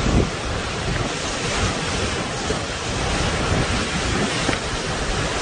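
Tropical cyclone wind and rain, a steady dense rushing noise, with gusts buffeting the phone's microphone; a stronger gust comes just after it begins.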